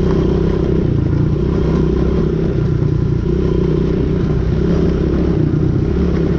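Quad bike (ATV) engine running as the machine is ridden, the engine note steady with slight rises and falls.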